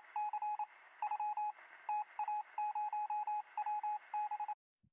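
Title-animation sound effect of rapid electronic beeps, all at one pitch, in quick runs like keystrokes, timed to text being typed out on screen. The beeps stop near the end.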